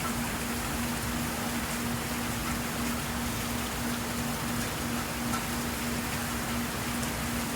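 Steady rain falling, an even hiss with no break. Underneath it runs a low hum that keeps cutting in and out.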